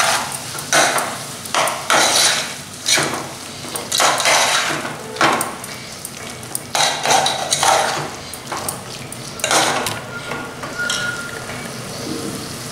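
Steel spoon stirring and scraping a thick tomato-and-spice-powder masala around a metal pot, in repeated short scraping strokes with brief pauses.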